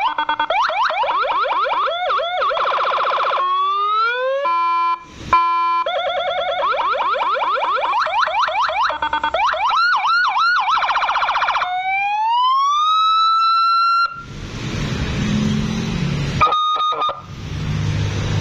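Federal Signal 200-watt electronic siren cycling through its tones: fast warbling yelps, a short steady horn-like blast, more yelps, then a slow rising wail. Near the end it gives way to a loud rushing noise, broken by a brief steady tone.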